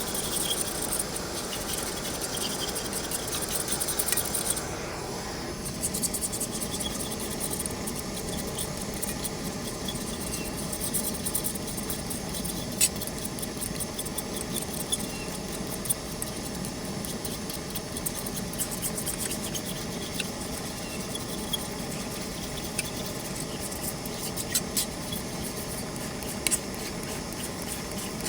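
Food frying in a pan, a steady sizzling hiss dotted with sharp pops and crackles; the hiss thins a little about five seconds in.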